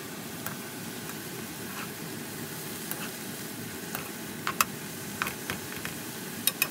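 Seasoned bracken fern sizzling steadily as it is stir-fried in a nonstick wok, with a few sharp clinks of a metal spoon against the pan as it is stirred.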